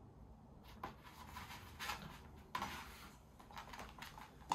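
Toy poodle playing with a small rubber ball on a laminate floor: irregular clicks and scuffs of claws and ball on the boards, with one sharp knock near the end.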